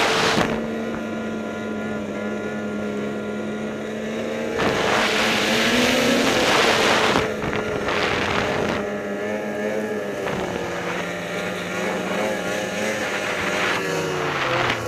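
Ski-Doo E-TEC two-stroke snowmobile engine running at speed with a steady tone, overlaid by rushes of wind noise on the helmet microphone, the longest a few seconds in. Near the end the engine note falls as the throttle eases off.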